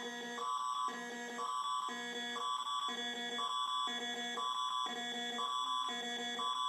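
Electronic two-tone alarm, switching between a high and a low tone about twice a second over a constant high whine.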